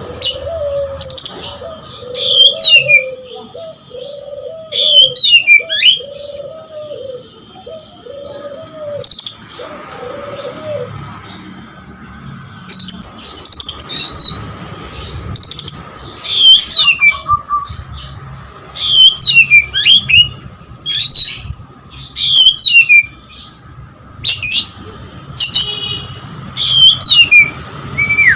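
Oriental magpie-robin singing hard in repeated loud bursts of rapid, sweeping whistles and chatter, its song including lovebird-like material. A low call repeats about once a second in the first ten seconds or so.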